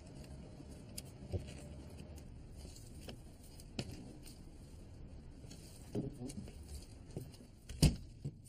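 A few scattered knocks and clicks over a low background hum, with one louder knock near the end.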